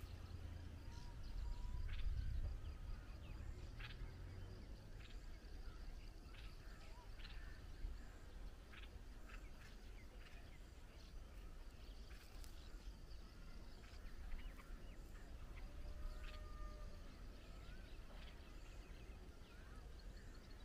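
Faint outdoor ambience: a low wind rumble on the microphone, strongest in the first few seconds, with scattered short bird chirps and clicks.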